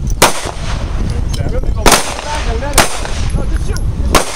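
Handgun shots from a line of pistol shooters: four loud, sharp shots at uneven intervals, with fainter shots from farther down the line between them, over a steady low rumble.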